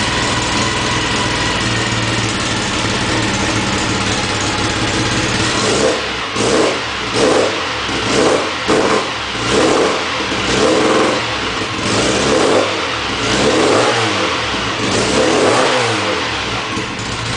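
Tuned Mini's 1380 cc A-series four-cylinder engine, freshly rebuilt and on its first run. It idles steadily, then about six seconds in it is blipped in a quick series of revs, roughly one a second.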